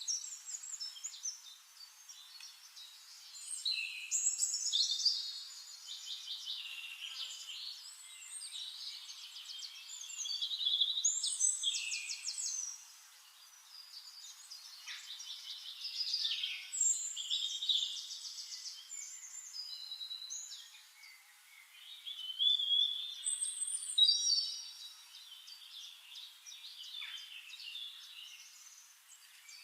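Songbirds singing: a chorus of chirps and fast trilled phrases, each phrase a second or two long, coming one after another every few seconds.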